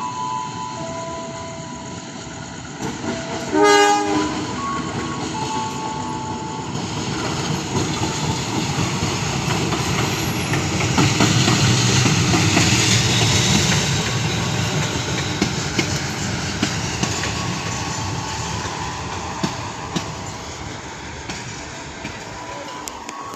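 A train sounds a short horn blast a few seconds in, then runs through the station. Its rumble builds to a peak about halfway and fades, with wheels clicking over the rail joints in the second half. A station chime melody plays faintly at the start.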